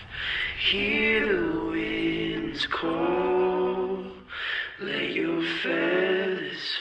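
Singing voices, largely unaccompanied, holding long notes in phrases with brief breaks between them.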